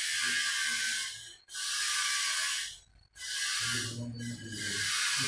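Sandpaper rubbed by hand along a pine board, a rasping hiss in long back-and-forth strokes of about a second and a half each, with a brief break between strokes.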